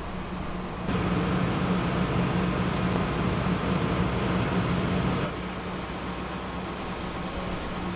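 Steady rumble of idling vehicle engines with a constant low hum. It steps up louder about a second in and drops back about five seconds in.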